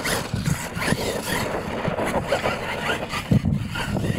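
Radio-controlled monster truck driving hard over a dirt track and ramps: motor running and tires churning loose dirt. A hard thump comes a little over three seconds in and is the loudest sound.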